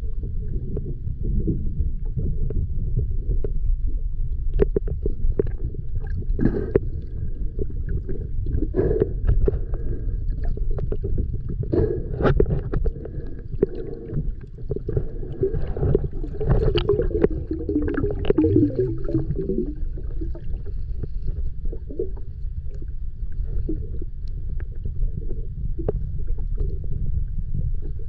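Underwater sound as picked up by a camera in its housing: a steady low rumble with scattered clicks and crackles, and a louder burbling stretch a little past the middle.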